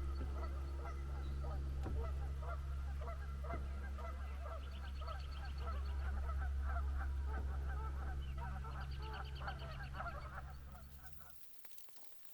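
A flock of Canada geese honking in a dense, overlapping chorus over a steady low hum, with a small bird trilling now and then. The sound drops away abruptly near the end.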